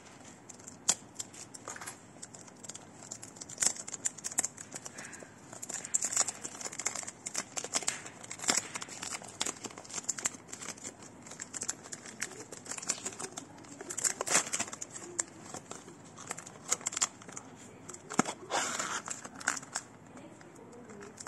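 Cellophane shrink-wrap on a perfume box being slit with a small pocketknife and peeled off by hand, crinkling with many irregular sharp crackles.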